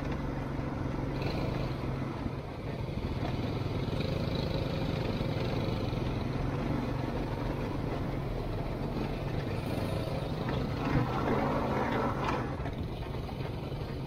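ATV engine running while riding, a steady low drone with a louder, rougher stretch for a couple of seconds near the end.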